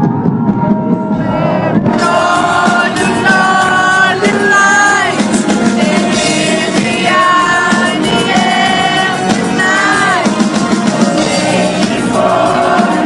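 A rock band playing live through a PA system, with a lead vocal singing a slow, held melody over the instruments.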